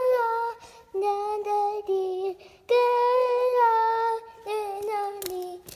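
A young child singing a tune in long held notes on nonsense syllables ("no, no"), in phrases of about a second with short breaks between them. There are a couple of sharp knocks near the end.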